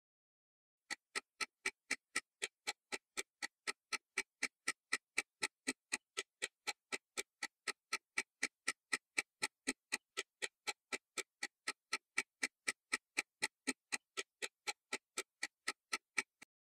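Quiz countdown-timer sound effect: even, clock-like ticks, about three a second, starting about a second in and stopping just before the end.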